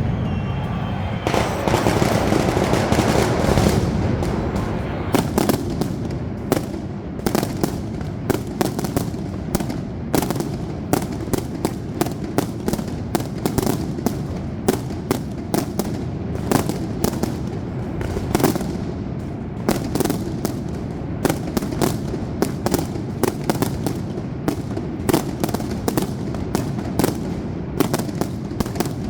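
Aerial fireworks display. A dense rumble of bursting shells fills the first few seconds, then comes an irregular run of sharp bangs and cracks, several a second, over a continuous low rumble.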